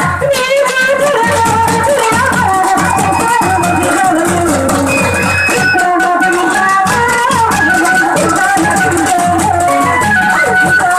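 Folk drum troupe beating large double-headed drums with sticks in a dense rhythm, with a constant rattling jingle on top, under a man singing a wavering melody into a microphone.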